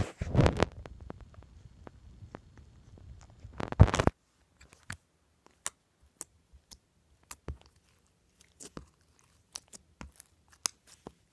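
Flarp noise putty being squeezed and poked, making wet squelching noises. There are two loud squelches, one at the start and one about four seconds in, followed by scattered small sticky pops and clicks.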